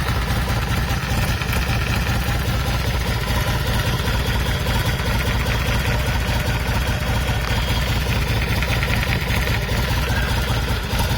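Yamaha BT 1100 Bulldog's air-cooled V-twin engine running steadily, with an odd noise that sounds as if something has play, coming from the middle of the left engine cover; the owner fears engine damage.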